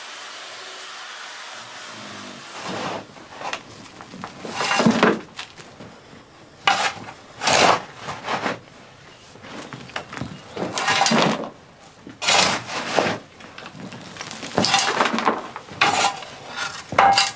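A shovel scraping and digging into soil on a basement earth floor: about a dozen irregular scraping strokes, roughly one a second, starting a couple of seconds in after a steady hiss.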